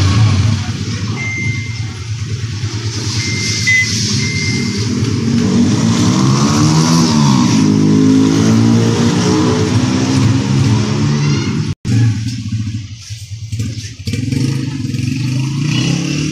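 Honda CG125 motorcycle's single-cylinder four-stroke engine being revved up and down during a tune-up, its pitch rising and falling. The sound breaks off for an instant about twelve seconds in, after which an engine keeps running steadily and more quietly.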